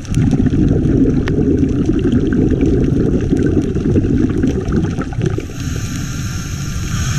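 Scuba diver's exhaled bubbles gurgling past an underwater camera housing for about five seconds, then easing to a weaker muffled underwater rumble. Scattered small clicks run through it.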